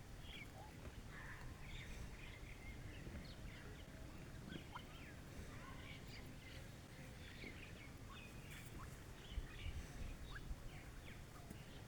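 Faint, scattered bird chirps and short calls, many brief notes with no regular rhythm, over a low steady background noise.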